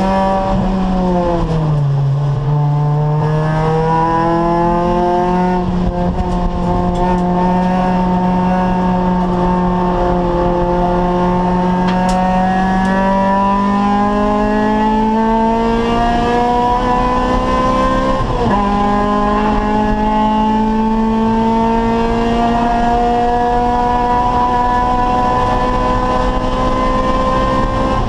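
Acura Integra race car's four-cylinder engine at racing speed. Its pitch falls near the start, then climbs slowly under load for a long stretch. It dips sharply about two-thirds of the way through and climbs again.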